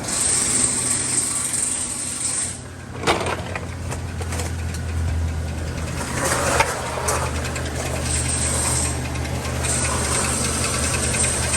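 2013 Chevrolet Silverado 1500's 5.3-litre V8 idling with a rattling knock, the noise that was feared to be a cracked flywheel or internal engine problem. A couple of sharp clicks stand out about three seconds in and again just past the middle.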